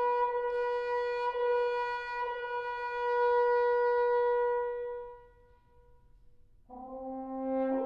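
Offstage French horn, played on its natural overtones without valves, holding one long high note that swells and then fades away. After a short silence a new call starts an octave lower and climbs back up to the high note near the end.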